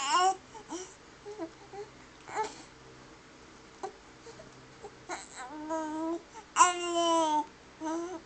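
Infant cooing and babbling happily. There are a few short coos, then a quiet stretch. From about five seconds in come longer drawn-out coos, the loudest near seven seconds.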